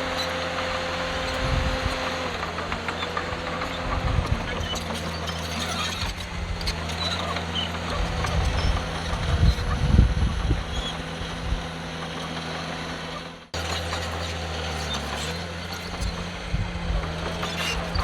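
Heavy diesel earthmoving machinery running steadily, with a rumble of knocks and clatter, loudest about ten seconds in. The sound breaks off for an instant about two thirds of the way through, then the engine carries on.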